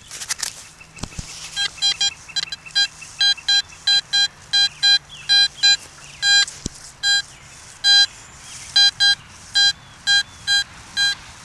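Metal detector beeping over a buried target, with many short, identical tones coming two or three a second in an uneven rhythm as it is swept back and forth to pinpoint the spot. A brief scuff comes at the very start.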